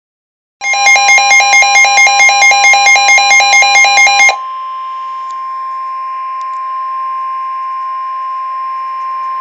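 Weather-warning alert tones: a loud electronic tone pulsing about four times a second for nearly four seconds, then a steady single-pitch alarm tone of the kind NOAA Weather Radio sounds before a warning message.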